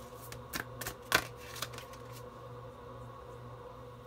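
Tarot cards being handled as the next card is drawn: a few light clicks and taps in the first second and a half, the loudest about a second in. A faint steady hum follows.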